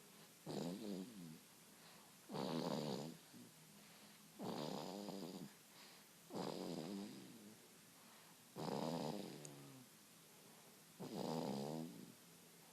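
Sleeping baby snoring in deep sleep: six snores in a steady rhythm, one about every two seconds, each lasting about a second.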